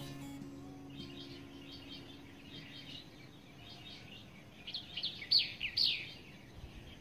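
Wild birds chirping, with a run of quick, loud downward-sweeping chirps about five seconds in.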